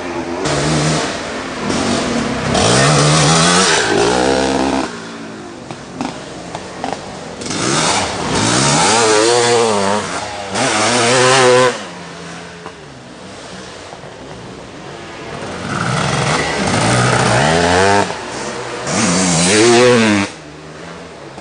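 500cc two-stroke motocross bikes revving hard as they ride past, in several loud bursts of a few seconds each. The engine pitch swoops up and down as the riders accelerate, shift and back off, and drops away sharply after each burst.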